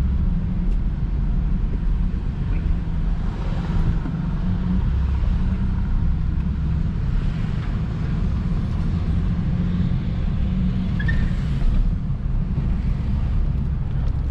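Steady low rumble of a car moving along, engine and tyre noise heard from inside the vehicle.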